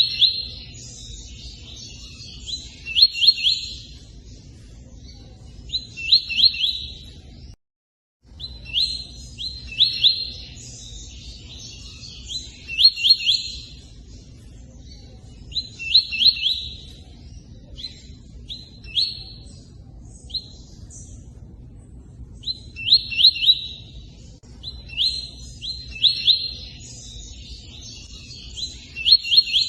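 A tui-tui singing short bursts of fast repeated notes, its 'cortando' song, every two to three seconds with pauses between. Under it runs a steady low hiss of running water. The sound cuts out completely for about half a second about eight seconds in.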